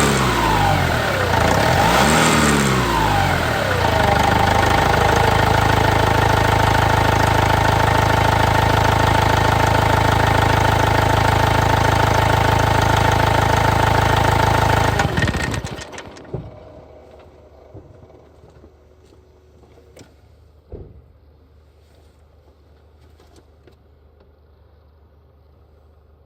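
Vauxhall Movano 2.5 turbo diesel engine revved twice, its pitch rising and falling, then held running steadily with a high turbo whistle whine over the engine note. The engine stops about fifteen seconds in, leaving only a few faint clicks.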